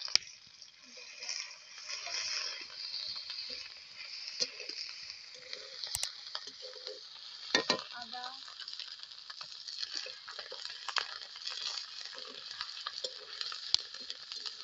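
Sliced onions, green chillies and just-added garlic sizzling steadily in hot oil in a kadai, while a metal spatula stirs and scrapes them. The spatula strikes the pan sharply near the start, about 6 s in and again about 7.5 s in.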